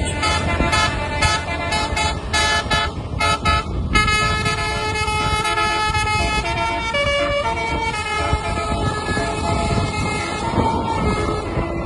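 Indonesian 'telolet' multi-tone bus horn playing a tune: a quick run of short clipped notes in the first four seconds, then longer held notes stepping up and down in pitch, over a low steady rumble.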